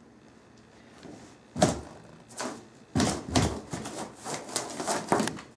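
A blue rubber balloon being handled close to the microphone: a run of sharp rubbing and knocking noises, a few at first, then bunched closely together from about three seconds in.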